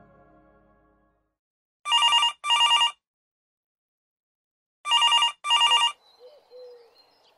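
Telephone ringing in the double-ring pattern: two pairs of trilling rings about three seconds apart, the first pair about two seconds in. Fading background music dies away in the first second.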